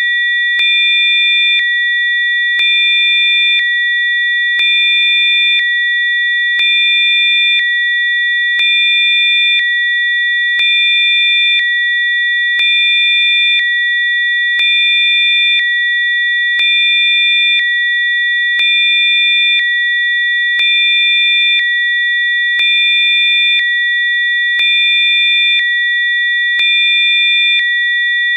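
Electronic sine tones of Rife frequencies: several high-pitched pure tones held steady together, with some of them switching in and out in a slow regular pulse, about a second on and a second off.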